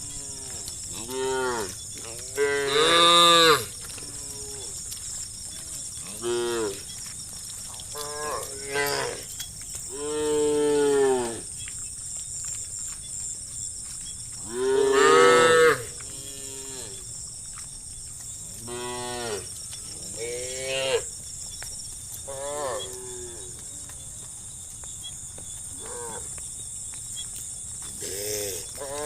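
Herd of cows mooing: about a dozen separate moos of differing pitch and length follow one another, the loudest about three seconds in and again around fifteen seconds in, over a steady high-pitched hiss.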